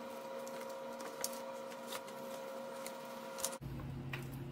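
Steady machine hum made of several held tones, with a few faint taps. About three and a half seconds in, it cuts off abruptly and a lower hum takes over.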